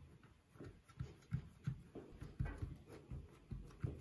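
Hands patting and pressing crumbly shortcrust dough flat into a metal baking tin: soft, irregular thumps, about three a second.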